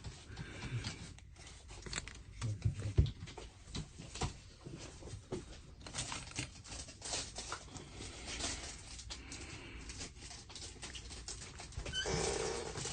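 Scattered small clicks and taps with rustling, as objects are handled and moved about, and a longer, louder rustle near the end.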